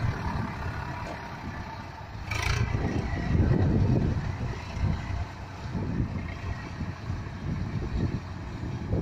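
Swaraj 744 tractor's three-cylinder diesel engine labouring as it hauls a heavily loaded sugarcane trailer over rough ground, its rumble swelling louder about three seconds in and easing again. A brief hiss sounds about two seconds in.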